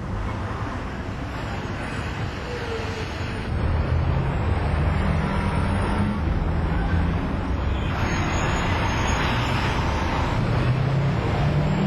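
Steady engine-like rumble with a noisy hiss over it, like road traffic, stepping up in loudness about three and a half seconds in.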